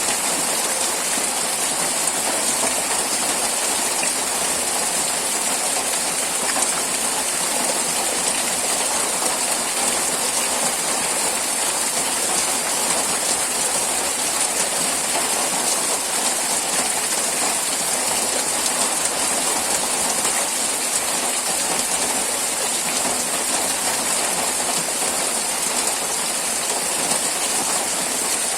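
Steady rain falling, an even, unbroken hiss of dense patter at an unchanging level.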